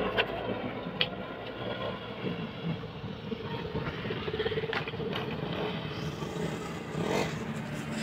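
Motor vehicle engines running steadily, with a few short knocks.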